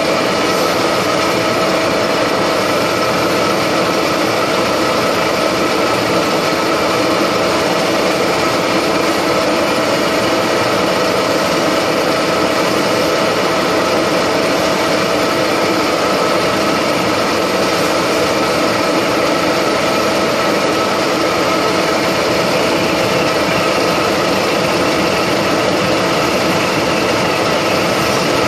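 Vertical milling machine running, its spiral end mill side-cutting a flat of a hexagon on a metal fitting: a steady mechanical running noise with a constant whine.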